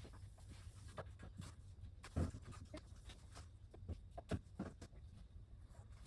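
Irregular light taps, knocks and rustles of movement in a small room, with a louder thump about two seconds in and another sharp knock a little past four seconds.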